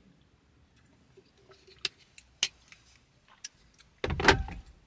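Faint sips and swallows from a plastic shaker bottle, with a few small clicks, then a short, loud breath out with some voice in it, about four seconds in.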